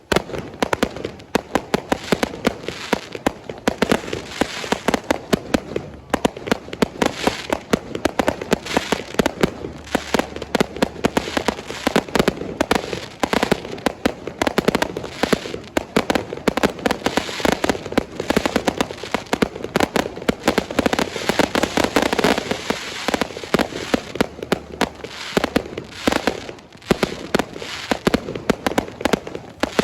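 Fireworks display going off in a dense, unbroken barrage: many sharp bangs and crackles a second.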